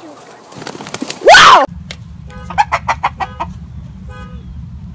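Chickens: one loud falling squawk about a second and a half in, then a run of quick, short clucks, with a steady low rumble underneath.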